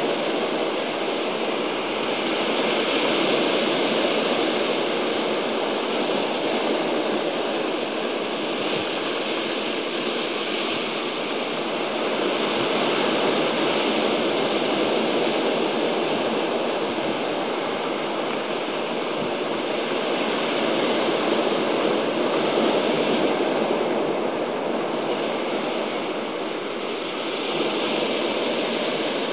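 Sea surf washing over rocks: a steady rush that swells and eases slowly over several seconds. No bird calls stand out.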